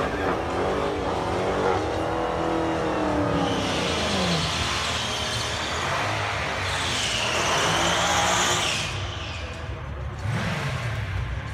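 A 2017 Dodge Challenger Hellcat and a 1,000-plus-horsepower 1971 Plymouth Cuda doing burnouts before a drag race. The engines rev high and fall away over the first few seconds, then tyres squeal long and wavering from about three and a half to nine seconds. A short rising rev comes near the end.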